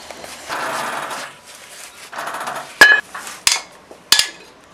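Hand tools working on the steel undercarriage of a railway car. Two short scrapes come first, then in the second half three sharp metal knocks that ring briefly.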